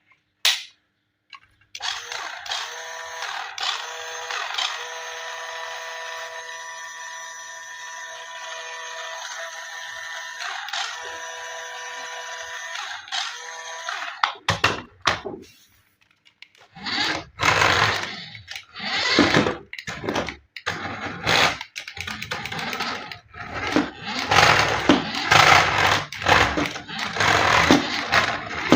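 Small electric motor of a remote-control toy vehicle running with a steady whine for about twelve seconds, then a string of short, uneven bursts of sound.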